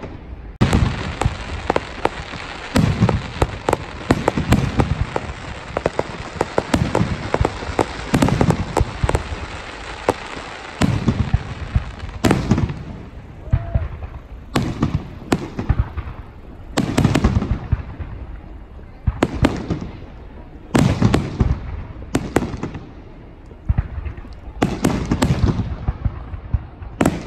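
Aerial fireworks shells bursting: for the first dozen seconds a dense barrage of bangs over continuous crackling, then separate booms every second or two, each trailing off.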